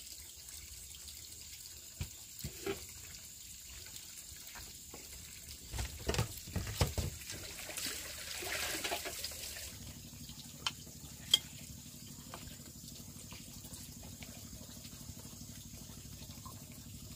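Water trickling and splashing, with scattered light knocks and a quick cluster of louder knocks about six seconds in; a low steady hum starts about ten seconds in.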